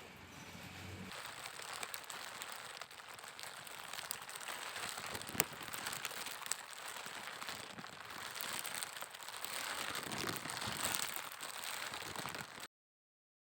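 Steady crackling, pattering noise made of many small clicks, a foley sound effect, with one sharper click about five seconds in; it cuts off abruptly to silence near the end.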